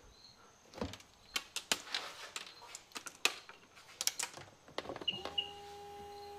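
Clicks and rattles of hands working at a 2002 Sea-Doo GTX DI's connectors and safety-key post, then two short high beeps from the watercraft. A steady hum starts just after the beeps and runs for about two seconds.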